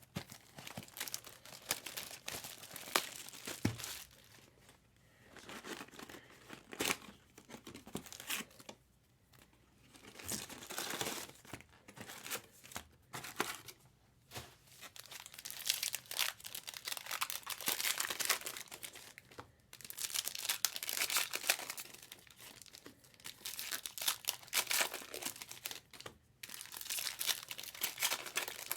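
Foil trading-card pack wrappers being torn open and crinkled, with the cards inside handled, in repeated bursts with short pauses between packs.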